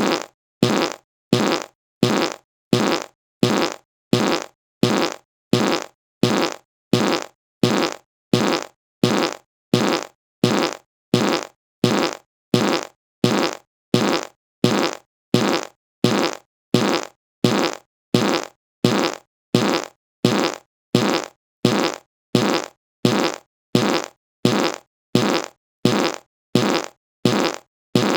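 A short fart sound effect repeated over and over, about once a second, each fart fading out with a gap of silence before the next.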